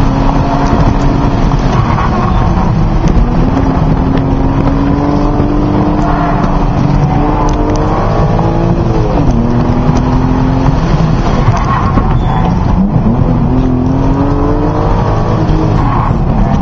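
BMW M Coupe's straight-six engine, heard from inside the cabin under hard driving. Its pitch climbs and falls again and again as the car is accelerated and lifted between cones, with sharp drops about nine and thirteen seconds in, over steady road and wind noise.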